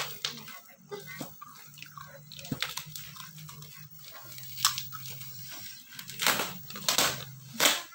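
Scattered clicks and taps from hands handling a cardboard box and the toy inside, over a low steady hum. The clicks come more often and louder near the end.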